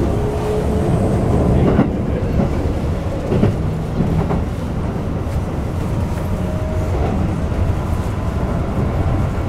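Keikyu New 1000 series electric train running, heard from inside the car: its Toyo IGBT-VVVF inverter and traction motors whine in a rising pitch as the train gathers speed, over a steady rumble from the wheels and bogies. A few knocks come as the wheels cross rail joints.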